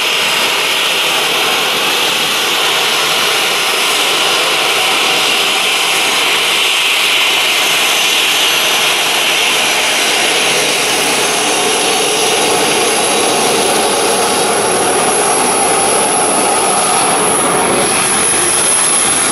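Airliner jet engines at taxi power: a steady, loud rushing roar with a thin high whine that grows stronger in the second half.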